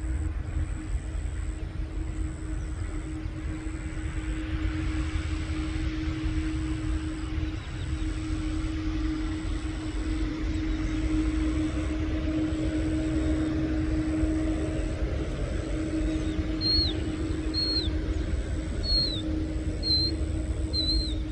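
Boeing 787's jet engines running at taxi power as the airliner turns onto the runway: a steady low rumble with a held hum. Near the end a bird gives six short, high chirps that fall in pitch, about a second apart.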